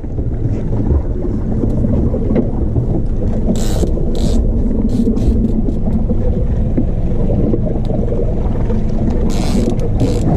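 Steady low rumble of a small boat under way, its outboard motor running under wind and water noise. A few short hissing bursts come about four seconds in and again near the end.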